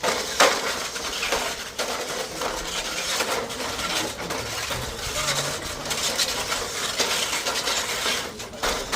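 Small remote-controlled robots driving and shoving against each other in a pushing match: a continuous rattling clatter with many small knocks and clicks.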